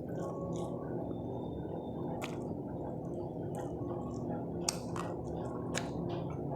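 Close-up eating sounds: wet chewing and mouth smacks with scattered sharp clicks, over a steady low hum.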